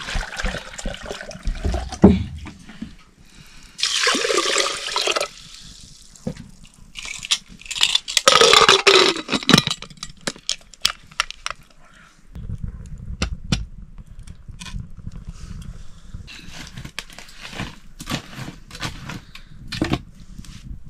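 Water pouring and splashing in two bursts, the first about four seconds in and a longer one from about seven to ten seconds, among scattered knocks and clicks of handling.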